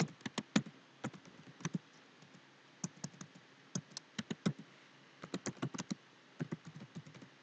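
Computer keyboard being typed on: irregular key clicks in short runs with brief pauses, as a word is typed.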